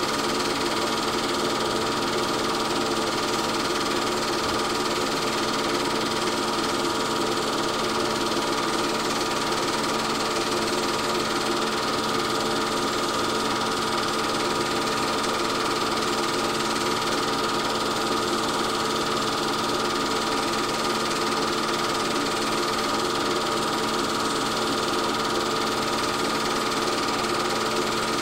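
8 mm film projector running: a steady mechanical whirr and clatter with a constant hum, unchanging throughout.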